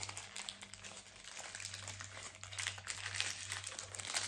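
A striped paper bag crinkling and rustling as it is unfolded and opened by hand, a run of irregular crackles that gets louder in the second half. A low steady hum sits underneath.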